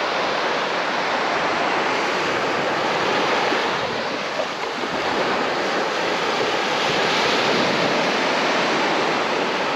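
Sea surf washing onto the beach: a steady rush of noise that swells and eases slightly.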